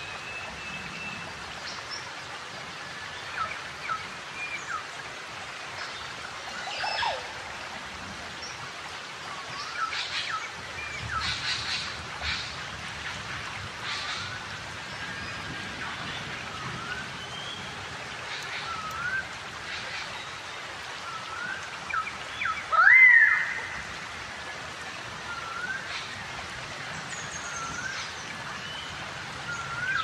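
Forest birds calling: many short whistled notes that glide up and down, repeating every second or two, over a steady background hiss. One much louder sweeping call stands out partway through.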